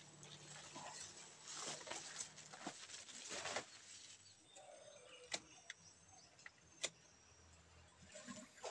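Faint outdoor background with a few sharp, separate clicks, the snips of hand pruning shears cutting branches off a fig bonsai stock, and birds calling faintly.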